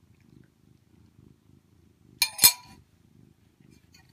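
Cat purring in a steady rhythm. About two seconds in, a metal spoon clinks twice against the ice cream bowl and rings briefly.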